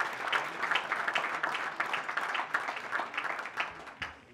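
Audience applauding, the clapping thinning out and dying away near the end.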